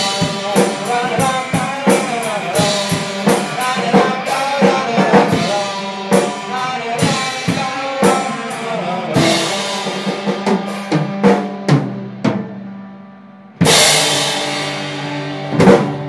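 Live band playing at a soundcheck: a drum kit with kick and snare beats under a melodic instrument line. The music thins and fades about twelve seconds in, then a loud crash comes in with a held chord, followed by one more accented hit near the end.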